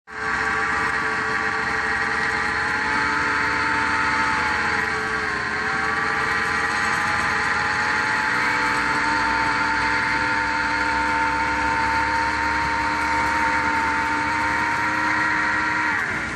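Concrete boom pump truck running steadily, a constant mechanical drone with a high whine over it. The pitch dips briefly about five seconds in, recovers, and falls near the end.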